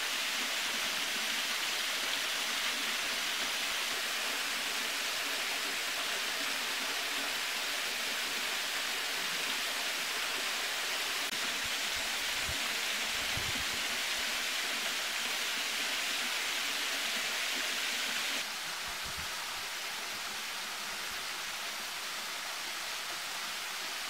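Steady rush of flowing river water, an even hiss with no distinct events, dropping a little in level about eighteen seconds in.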